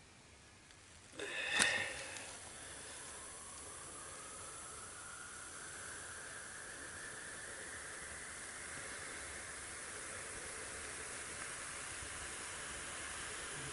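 A ping pong ball catching fire with a short loud burst about a second in, then burning with a steady hiss that slowly grows louder and rises in pitch.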